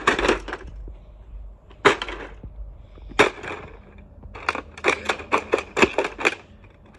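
Plastic toy fire truck playset being slammed onto the ground and stomped on, its plastic cracking and clattering. Single hard hits at the start, about two seconds in and about three seconds in, then a quick run of about ten stomps near the end.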